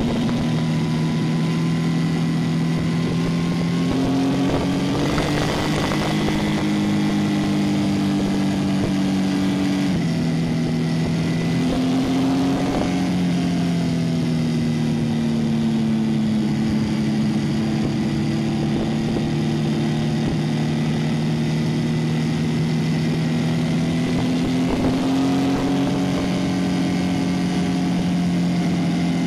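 Motorcycle engine running under way, over a steady rush of wind and road noise. The engine note steps up about four seconds in, drops abruptly about ten seconds in, then sinks slowly and rises again near the end.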